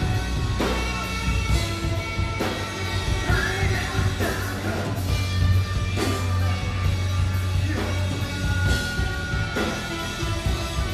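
Live rock band playing: distorted guitar and heavy bass under a driving drum kit with cymbal crashes, and a male vocalist singing into a microphone over the top.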